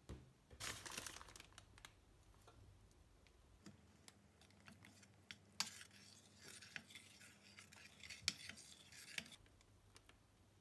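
Faint scraping and sharp clinks of a metal spoon stirring warm animal glue in a steel pot as chalk is worked in for a canvas ground. About half a second in there is a brief rustle of the jute canvas being handled.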